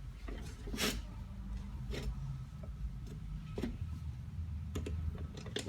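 Scattered light clicks and knocks of hand work on a recumbent electric trike, a few of them about a second apart, over a low steady hum.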